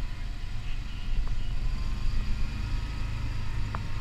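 Steady low rumble of the lead vehicle carrying the camera as it drives over the grass course.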